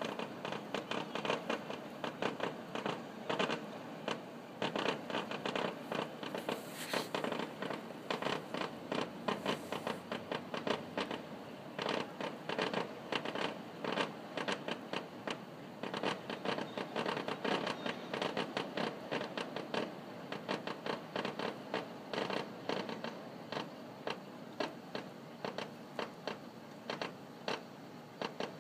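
Fireworks finale: a continuous barrage of bangs and crackles from many shells bursting in quick succession, several a second.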